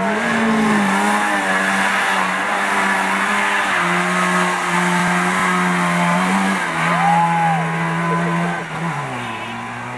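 Trabant rally car engine running hard at high revs, its pitch holding steady in stretches and stepping down and back up a few times. Near the end the pitch drops and the sound fades as the car drives away.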